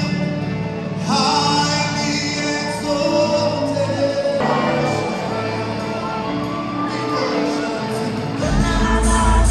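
Gospel worship music performed live: singers over a band, with a heavy bass coming in near the end.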